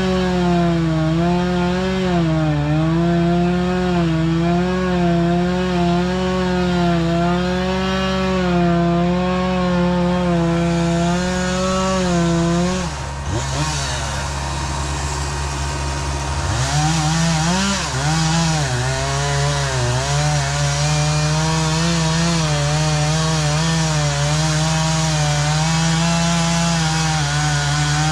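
Chainsaw cutting into a pine tree, its engine note dipping and wavering as the chain bites. About thirteen seconds in the note falls away for a few seconds, then the saw revs back up and keeps cutting.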